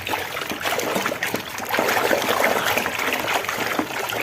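Water trickling and splashing over a mud-caked toy pistol as it is rinsed clean, with many small splashes and knocks.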